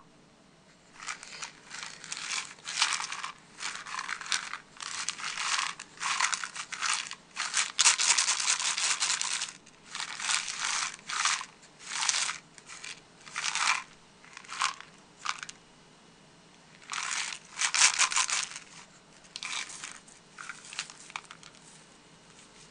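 A pair of homemade cup maracas on stick handles shaken in short rattling bursts, about one a second, with a brief pause about two-thirds of the way through before a few more shakes that trail off.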